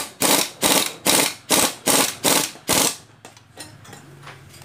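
Pneumatic impact wrench firing in short repeated bursts, about two to three a second, driving the footrest-bracket bolts tight; it stops a little under three seconds in.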